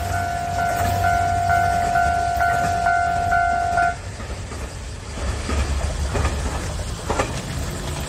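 Japanese level-crossing warning bell ringing at about two strokes a second, cutting off about four seconds in. Under it, the low rumble of a JR Kyushu KiHa 200 series diesel railcar (the Nanohana) running away down the line.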